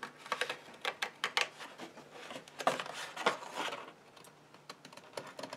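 Small craft scissors cutting through two layers of folded card: a run of short, irregular snips.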